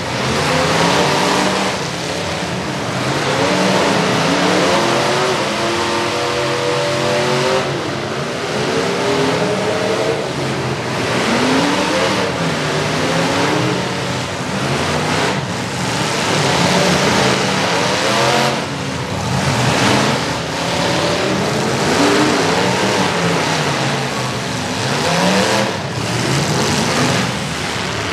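Several demolition derby cars' engines revving up and down together, their pitches climbing and falling over one another, with a few sharp bangs of cars hitting.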